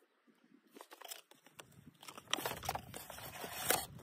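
A paper instruction leaflet being unfolded and handled, rustling and crinkling with sharp crackles. It starts after a quiet second and a half and is loudest just before the end.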